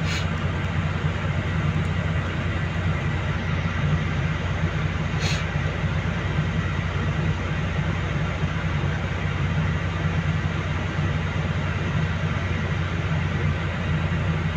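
Volvo crawler excavator's diesel engine running at a steady speed, a deep even drone, as the machine is inched along the lowbed trailer. A short sharp tick sounds about five seconds in.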